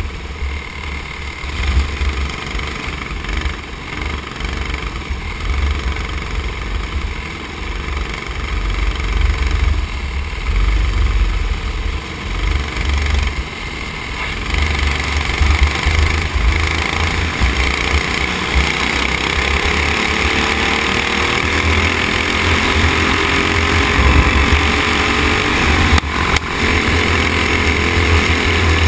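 Racing kart engine running at race speed, its pitch rising and falling with the throttle through the corners, heard from the onboard camera with heavy wind buffeting on the microphone.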